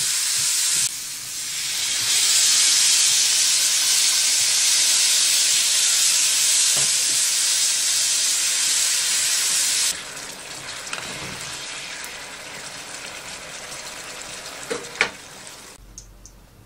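Diced onion and bell pepper frying in a small oiled pan, then cooking in sweet-and-sour sauce, with a loud steady sizzle. About ten seconds in the sizzle drops sharply to a quieter one, with two sharp clicks near the end.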